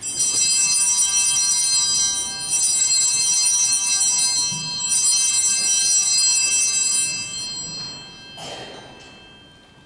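Altar bells, a cluster of small bells, rung in three shakes about two and a half seconds apart and then dying away about eight seconds in. This is the bell signalling the elevation of the host at the consecration of the Mass.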